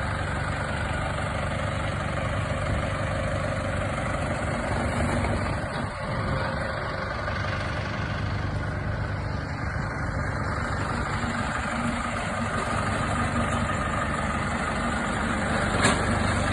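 Monoblock DC inverter heat pump running: a steady mechanical hum with a low drone, and one brief click near the end.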